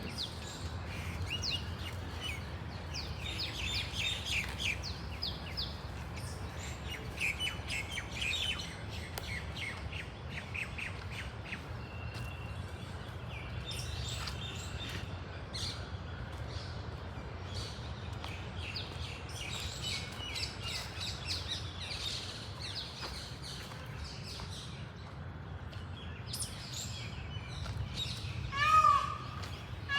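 Many small birds chirping and twittering in short high calls, over a steady low background rumble. Near the end a louder, repeated bird call cuts in above the chirping.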